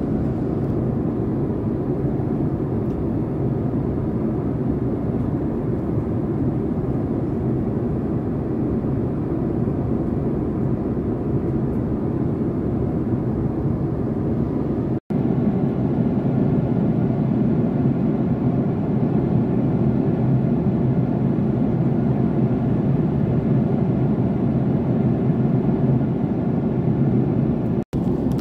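Steady cabin roar of a Boeing 767-400ER at cruise, the engines and airflow heard as an even low rumble. It breaks off for an instant twice, about halfway and just before the end, where the recording cuts.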